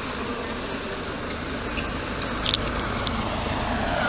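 Street noise: a steady rush of traffic, with a couple of small clicks just past the middle and a vehicle drawing closer near the end.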